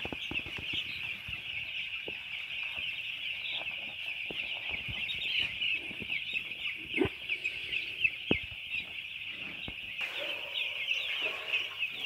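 A shed full of four-day-old broiler chicks peeping all at once: a dense, continuous high-pitched chatter of short falling peeps. Two sharp knocks sound past the middle.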